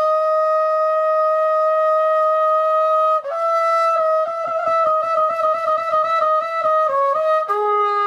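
Solo trumpet holds a long note for about three seconds, then plays a half-step trill (written F to G-flat) that starts on the upper note. The trill closes with a quick turn and drops to a lower held note near the end.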